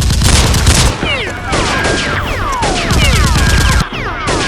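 Rapid automatic gunfire sound effects in loud bursts, with many overlapping falling whines over the shots from about a second in.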